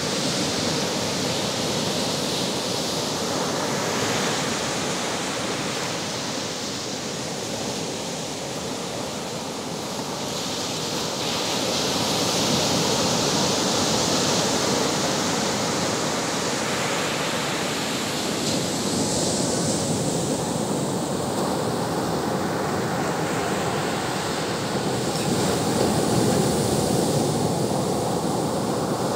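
Ocean surf breaking on a sandy beach: a continuous rushing wash of water that swells louder as the bigger waves break and run up the sand.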